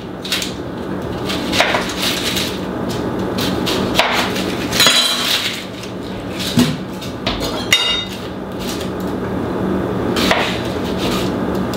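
Onion halves being peeled and handled on a plastic cutting board: the rustle of papery onion skin, with scattered knocks and clicks of the knife and onion against the board. A low steady hum runs underneath.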